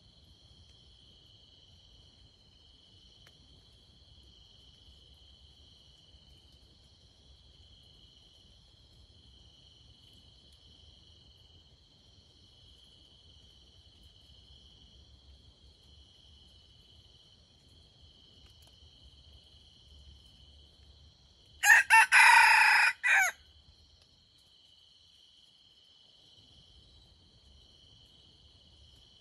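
A red junglefowl rooster crows once, a short crow of about a second and a half about three-quarters of the way through, ending in a brief final note. Throughout, a steady chorus of crickets trills.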